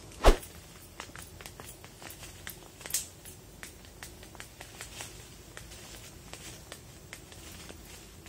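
A sharp knock just after the start, then faint irregular crackles and ticks of leaves and dry litter as a weaver ant nest is pried open and someone moves about on a leaf-strewn dirt path.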